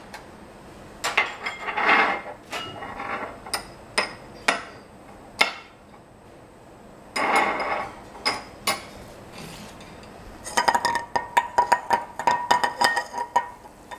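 Nonstick frying pan knocking and scraping against a gas range's metal burner grate while cold butter melts in it: scattered single knocks, then from about ten seconds in a fast run of rattling clinks with a metallic ring as the pan is swirled on the grate.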